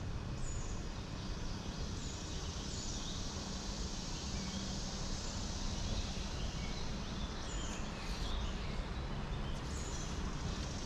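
Steady outdoor background noise with a few short, high, falling bird chirps scattered through it.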